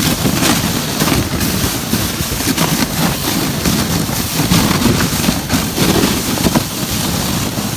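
A sled sliding and scraping over snow while towed behind an ATV, with wind buffeting the microphone and the ATV's engine running under it. A few short knocks come from bumps in the trail.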